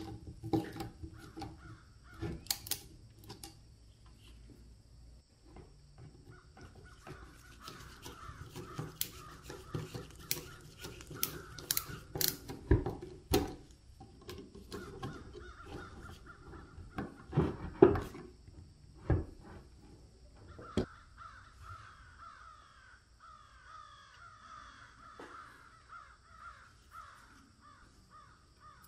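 Metal airgun parts being handled and reassembled on a wooden bench: a string of sharp metallic clicks and knocks, the loudest about two-thirds of the way through, with long stretches of raspy scraping.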